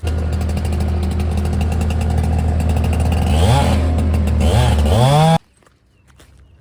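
An engine running loud and steady, revved up in three short rises near the end, then cutting off suddenly.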